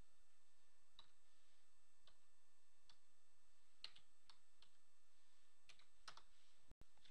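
Faint, slow typing on a computer keyboard: about nine separate key taps at uneven intervals as a search phrase is entered one letter at a time.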